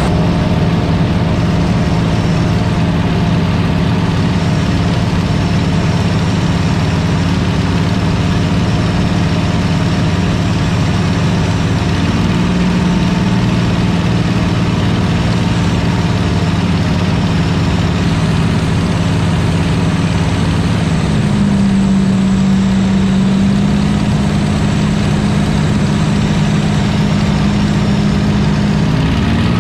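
Two-seat Spitfire's Rolls-Royce Merlin V12 engine running steadily in flight, heard from inside the cockpit with a constant rush of air. The engine note steps up slightly about 12 seconds in and again about 21 seconds in, then drops back near the end.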